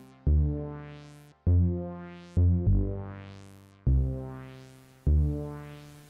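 Electronic background music: synthesizer notes struck about once a second, each dying away, with a rising filter sweep over them.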